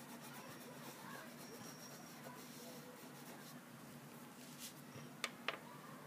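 A wax crayon rubbing faintly back and forth across paper as it shades in a drawing. Two light taps come near the end.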